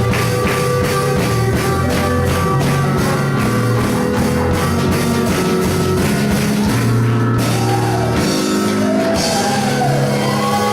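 Rock-style band music with a steady drum beat and sustained instrument notes; the cymbal strokes drop out about seven seconds in.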